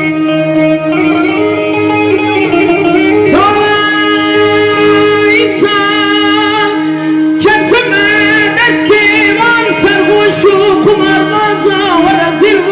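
Kurdish dengbêj uzun hava singing: long held, ornamented vocal notes over a steady instrumental drone. The voice comes in about three seconds in and begins a new phrase about seven and a half seconds in.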